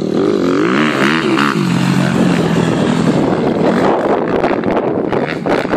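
250 cc dirt bike engine revving, its pitch rising and falling repeatedly in the first second and a half, then holding a steadier note as the bike rides on.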